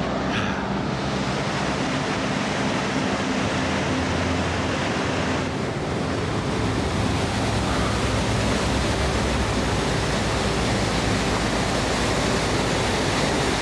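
Steady rushing roar of a waterfall, an even hiss of falling water with no breaks.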